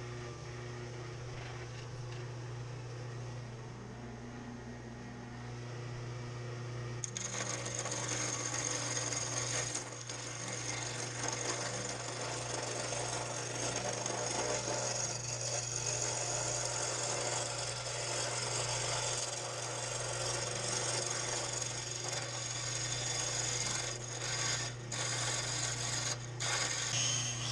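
Delta wood lathe running with a steady motor hum; about seven seconds in, a hand-held turning tool starts cutting the spinning wood blank, a rough, hissing scrape that stops and restarts briefly a few times near the end as the tool comes off the wood.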